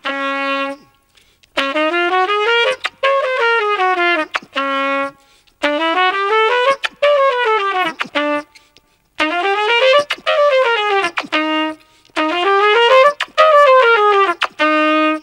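Solo trumpet playing a quick seven-note 'trumpet kiss' pattern again and again. Each run climbs and falls back to a held low note, with a short break before the next.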